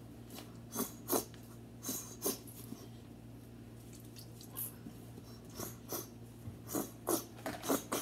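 Scattered soft taps, clicks and rustles of hands handling plastic bottles and bowls on a tabletop while making slime, over a faint steady low hum.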